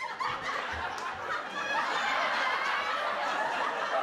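Sitcom laugh track: a crowd of people laughing together, a little louder about two seconds in.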